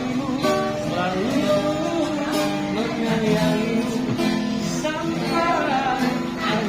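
Acoustic guitar strummed steadily, with a voice singing a pop ballad over it.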